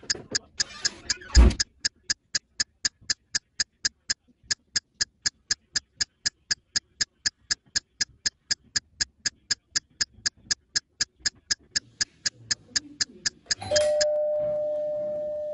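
Clock-ticking sound effect, fast and even at about four ticks a second, with a single low thump about a second and a half in. Near the end a doorbell chime rings once and fades slowly.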